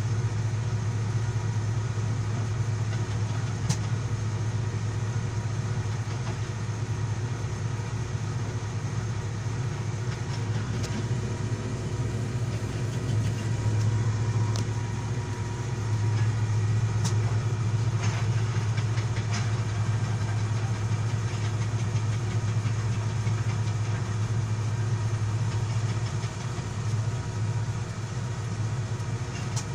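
Komatsu 220 excavator's diesel engine running steadily with a deep, constant hum, with a few sharp clicks here and there.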